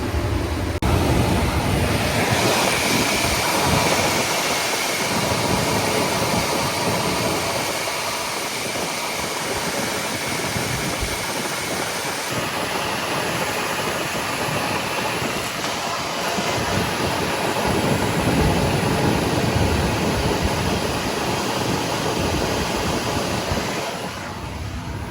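HVAC unit with its cleaned blower wheel and motor running on a call for cooling, giving a steady rushing of moving air. It changes about a second in and eases near the end. The owner takes it to be running without issues.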